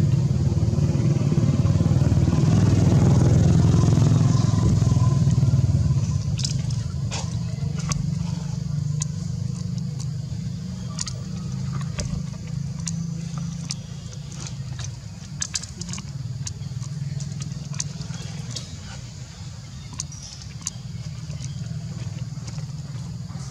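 A motor engine running with a low hum, loudest for the first six seconds, then fading and running on more quietly, with scattered sharp clicks.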